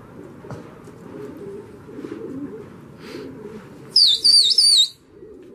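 Domestic pigeons cooing in a low, warbling murmur. Near the end, a loud, high whistle wavers up and down for about a second.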